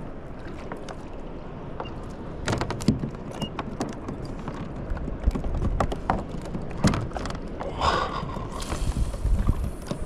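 Scattered knocks and clatter on a small boat at sea, over steady wind and water noise, with a short hiss near the end.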